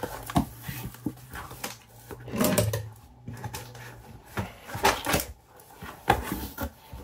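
A mailed package being opened by hand: packaging handled and pulled apart, with scattered knocks, scrapes and rustles. A short, low voice-like sound comes about two and a half seconds in.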